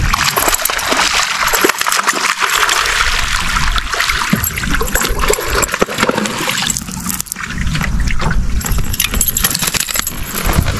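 A fish fight on rod and reel: a fishing reel being cranked while a hooked smallmouth bass splashes and thrashes in the water, with a low rumble underneath.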